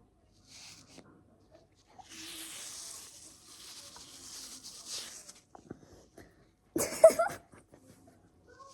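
Hands handling a foam squishy toy, with soft rustling and squishing in stretches. About seven seconds in there is a short, loud, pitched squeak.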